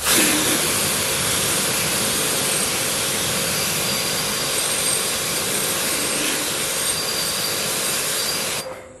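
High-pressure water spray hissing steadily against a muddy green glass soft-drink bottle held in the jet. It starts abruptly and cuts off shortly before the end.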